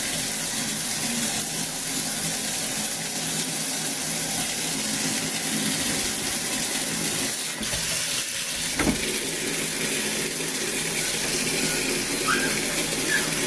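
Bathtub faucet running, water pouring steadily into a portable folding washing machine's tub as it fills. A single short knock sounds a little over halfway through.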